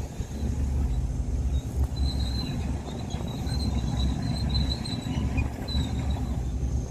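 Bulldozer's diesel engine running steadily under load, with a high squealing from its steel crawler tracks coming and going between about two and six seconds in.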